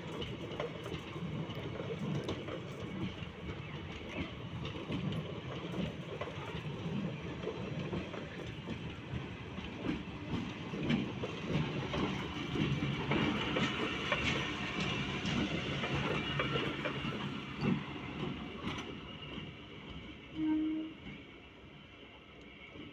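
Indian Railways passenger train passing close by, its wheels clicking rhythmically over the rail joints, loudest as an electric locomotive goes by, then fading away. A brief tone sounds near the end.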